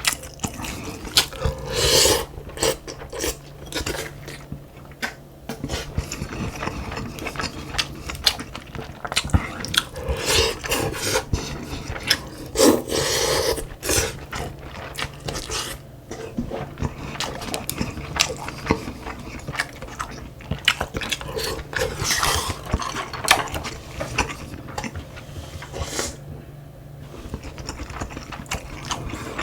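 Close-up eating sounds: chewing and biting, with many small clicks and scrapes of utensils against dishes.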